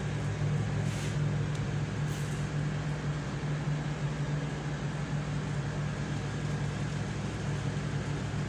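A steady low machine hum with an even hiss over it, unchanging throughout, with two brief rustles about one and two seconds in.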